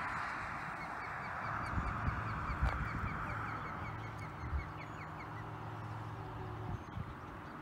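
Steady wind noise ahead of a thunderstorm, with a few low thumps of gusts hitting the microphone. About a second in, a bird gives a rapid run of short, high chirps lasting about three seconds.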